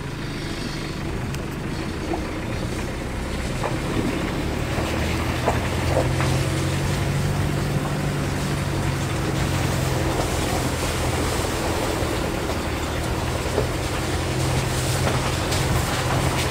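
Vehicle engine running steadily at low speed while the tyres hiss and splash through puddles and standing water on the road, with a few light knocks from the rough surface.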